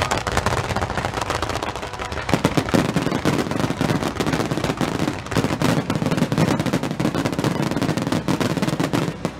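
Fireworks barrage (star mine) of shells fired in rapid succession from a row of ground mortars. It makes a continuous rattle of sharp launch and burst reports with crackling stars, which stops suddenly at the very end.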